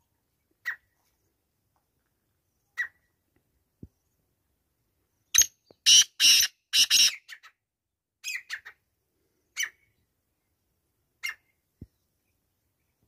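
Male black francolin calling: a couple of short single notes, then about five and a half seconds in a burst of several loud notes lasting about two seconds, followed by a few more short notes.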